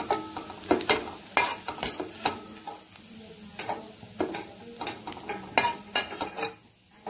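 A steel ladle repeatedly scraping and clinking against a stainless steel kadai as fried onions are scooped out, over the hiss of hot butter sizzling in the pan. The scraping dies down near the end.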